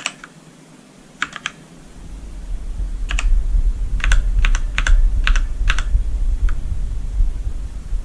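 Keys of a Redragon Ratri K595 mechanical keyboard with Outemu Black switches being pressed at an uneven pace: scattered sharp clacks, a couple early on and a quicker cluster between about three and six seconds in. A low rumble comes up about two seconds in and carries on under the keystrokes.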